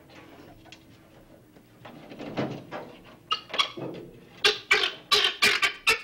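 Guinea fowl giving a run of harsh, rapid calls, several a second, starting about halfway through and growing louder toward the end.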